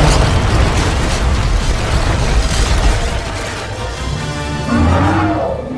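Dramatic film score with a loud boom about when it begins, followed by a few seconds of rumbling, explosive noise under the music.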